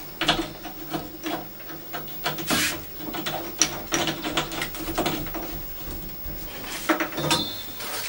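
Scattered clicks and light knocks of a braided water hose's fitting being handled and screwed onto a brass service valve by gloved hands.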